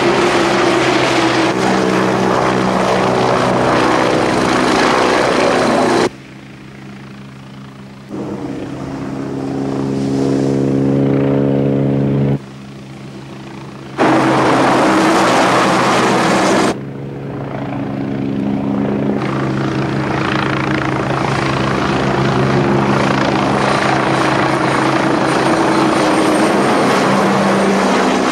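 Westland Wasp helicopter flying: a steady pitched engine-and-rotor drone with a rushing noise above it. It drops sharply quieter and jumps back louder several times, and swells as it comes closer in one of the quieter stretches.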